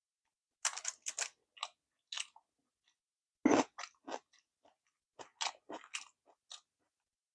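Close-miked chewing of sushi: a run of short mouth clicks and smacks, with one louder smack about three and a half seconds in.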